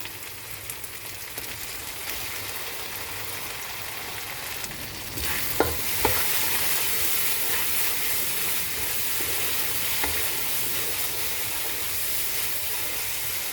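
Onion and chilli-garlic paste sizzling in hot oil in a pan. About five seconds in, the sizzle grows louder and hissier, with a few sharp clicks, as the chopped tomatoes go in.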